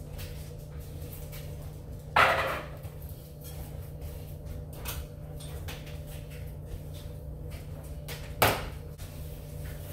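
Two short spritzes from a hand-held trigger spray bottle misting houseplants, about two and eight and a half seconds in, the first slightly longer and fading out.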